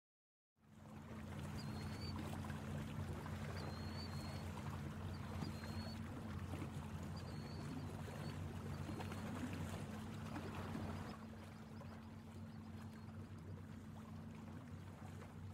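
Lake ambience of water lapping with a steady low hum underneath, and a bird chirping a few short high notes through the first ten seconds. It opens on a half-second gap of silence and gets a little quieter about eleven seconds in.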